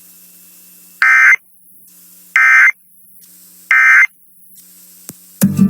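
Emergency Alert System end-of-message tones: three short, shrill, buzzy bursts of SAME digital data about a second and a half apart. This is the coded 'NNNN' signal that closes an EAS alert. A faint steady hum lies underneath, and music cuts in near the end.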